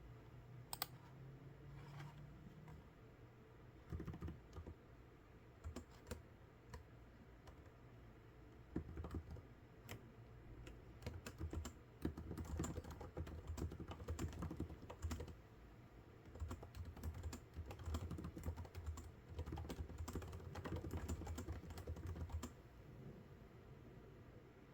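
Typing on a computer keyboard in bursts of rapid keystrokes, sparse at first and densest from about nine seconds in until it tails off near the end.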